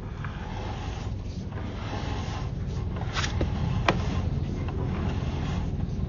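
Sewer inspection camera being drawn back through the line, giving a steady low rumble with two sharp clicks about three and four seconds in.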